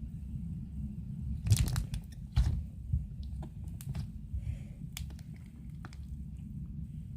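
Slime being squeezed and stretched by hand, giving scattered crackling pops, with the loudest a little after the start, over a steady low rumble.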